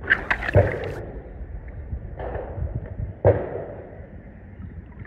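A die-cast toy combine harvester splashing into a swimming pool, followed by two sudden muffled thumps about two and three seconds in.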